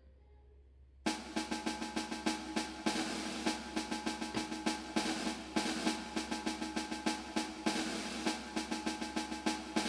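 Background music dominated by rapid drumming like a drum roll over held notes, cutting in abruptly about a second in.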